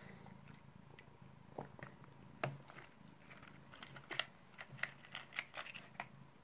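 Cat crunching tablets taken from a plastic pill organizer: faint, irregular sharp clicks and crunches, coming thick and fast from about two seconds in.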